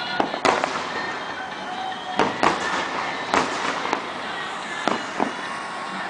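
Aerial firework shells bursting: a string of sharp bangs at irregular intervals, some in quick pairs, the loudest about half a second, two and a half and three and a half seconds in, over a steady background din.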